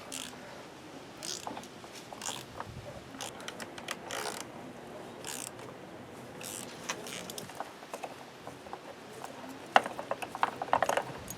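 Hand ratchet clicking in short, irregular strokes as it turns a thread-repair tap cutting oversize threads into the stripped spark plug hole of a 2001 PT Cruiser's aluminum cylinder head. The clicks get sharper and louder near the end.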